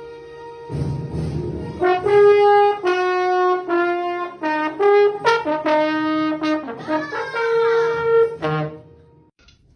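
Brass music playing a short tune of held notes that change about twice a second, with a sliding note near the end before it stops.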